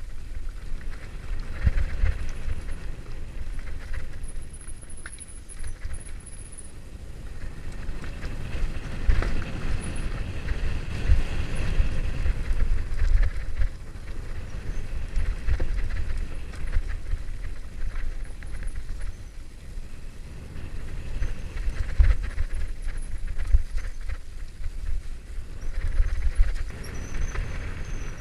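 Mountain bike riding fast down a loose gravel singletrack: tyres crunching over stones and the bike rattling on the rough ground, under a continuous low rumble.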